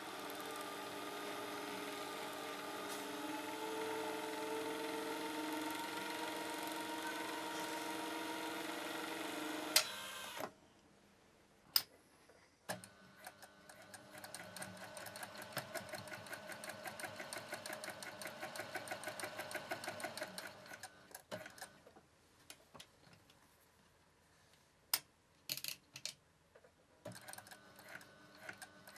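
Singer Professional LW103 df professional-grade sewing machine running fast and steady with a whirring hum for about ten seconds, then stopping suddenly. After a click it sews again at a slower pace, each needle stroke ticking evenly. It pauses with a few single clicks, then resumes stitching near the end.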